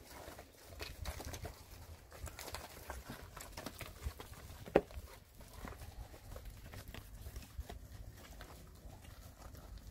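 Holstein-type heifers shuffling about a dirt corral: faint scattered hoof steps and knocks over a low rumble, with one sharp click about five seconds in.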